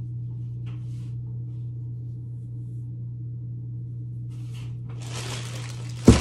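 Steady low hum, then a plastic bag of bread crinkling as it is handled, ending in a loud thump as it is dropped onto the kitchen counter near the end.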